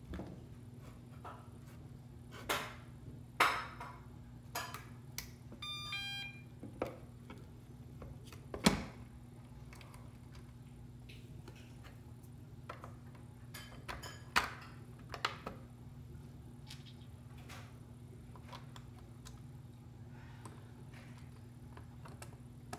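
Plastic clicks and knocks from handling the robot vacuum's battery compartment as a replacement battery pack is connected and pressed into place, the sharpest knock about nine seconds in. About six seconds in there is a brief run of short electronic beep tones, over a faint steady low hum.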